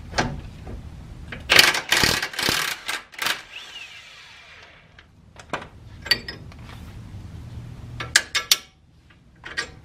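Kobalt 24V brushless cordless impact wrench hammering for about a second and a half to break loose the 18 mm nut on the lower ball joint's pinch bolt, then winding down with a falling whine. A few sharp metal clicks follow as the loosened hardware is handled.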